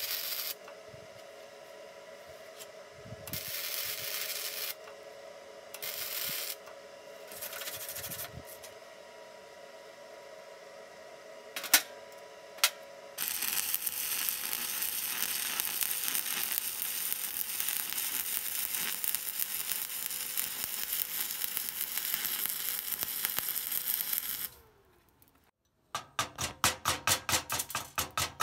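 Stick-welding arc crackling in four short bursts as tack welds are struck, then, after two sharp clicks, burning steadily for about eleven seconds as a bead is run. It cuts off, and after a moment of quiet come rapid scraping strokes over the fresh weld, about five a second.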